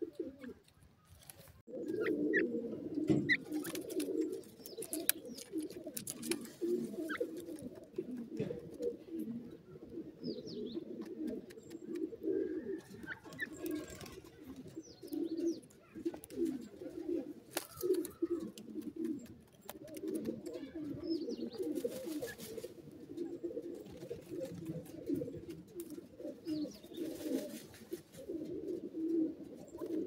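Pigeons cooing in a low, continuous, overlapping chorus that starts about two seconds in, with a few thin high chirps from small birds on top.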